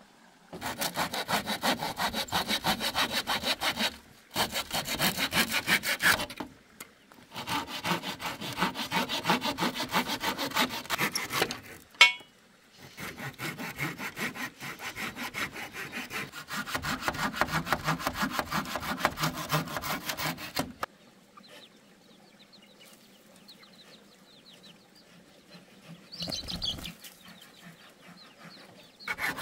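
Hand saw cutting through thin wooden poles with quick back-and-forth strokes, in four bouts separated by short pauses, with a sharp knock about halfway through. After that the sawing stops and it is much quieter, apart from a brief higher sound a few seconds before the end.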